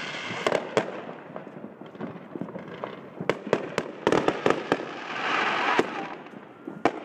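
Fireworks and firecrackers going off all around: irregular sharp bangs and pops, with a dense run of bangs about four seconds in.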